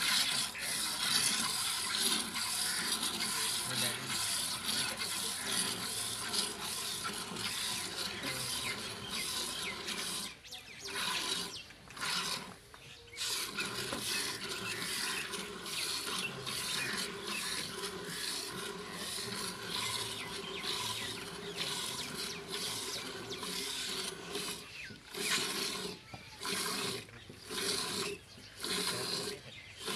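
Hand milking of a Nili-Ravi buffalo: streams of milk squirting from the teats into a steel bucket, a steady rasping hiss with a few short breaks and more broken up near the end.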